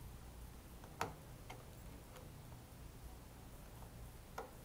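A few faint, scattered clicks of a long screwdriver working a small number six screw on a mini lathe's tailstock; the sharpest comes about a second in.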